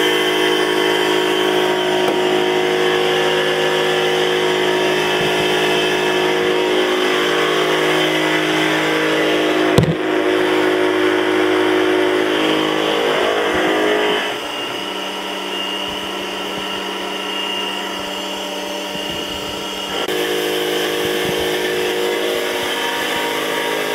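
Tormach PCNC 1100 CNC mill cutting steel with an end mill under high-pressure flood coolant: a steady spindle and cutting whine over the hiss of coolant spray. There is a sharp knock about ten seconds in. The sound drops somewhat about halfway through and comes back up near the end.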